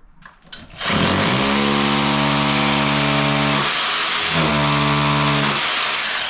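Hammer drill (perforator) boring a hole into the wall with a masonry bit. It spins up about a second in, runs steadily, drops out briefly past the middle, runs again and winds down near the end.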